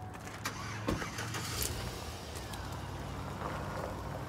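A motor vehicle running with a steady low hum, with a few short clicks in the first couple of seconds.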